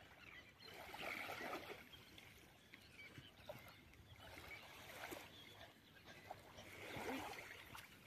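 Faint seaside ambience: a calm sea gently lapping at the shore, with a few faint bird calls.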